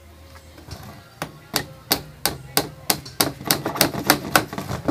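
Hammer tapping a small nail into the corner of a sabino-wood picture frame: about a dozen sharp, quick strikes at roughly three a second, beginning about a second in.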